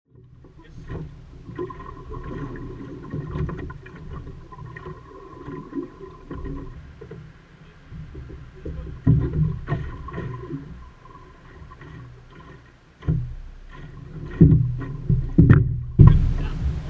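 Water slapping and sloshing against the hull of a wooden Optimist sailing dinghy, with irregular knocks and thumps of the boat and its gear, picked up by a camera mounted on the hull. It grows louder in the last few seconds.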